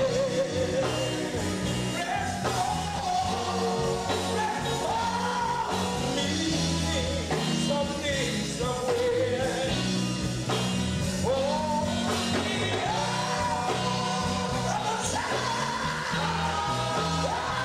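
Men's gospel quartet singing lead and harmony through microphones, backed by a live band with electric guitar and drums.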